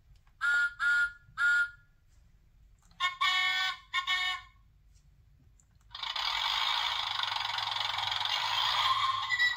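Electronic sound effects from a Thomas & Friends sound book's small speaker: three short high toots, then two longer, lower toots, then a steady hiss from about six seconds in.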